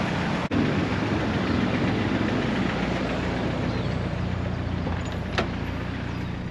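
Boosted car engine idling steadily, with a single sharp click about five seconds in.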